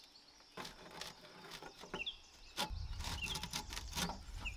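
Scattered light clicks and knocks of hand work on the tractor, with a small bird chirping repeatedly. A low rumble comes in a little past halfway.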